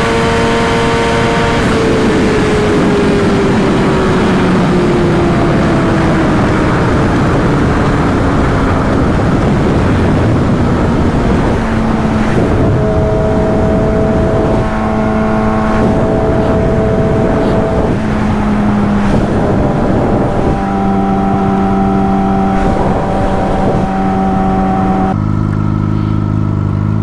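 Vehicle engine running hard at speed. Its pitch falls slowly over the first dozen seconds, then holds steady and jumps up or down in steps several times.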